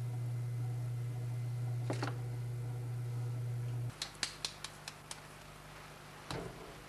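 A steady low hum that cuts off suddenly about four seconds in. A quick run of about seven light clicks follows, then one brief scrape.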